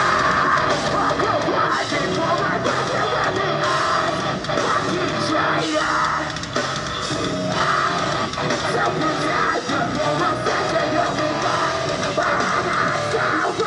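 Live heavy metalcore band playing at full volume, the vocalist screaming over distorted guitars.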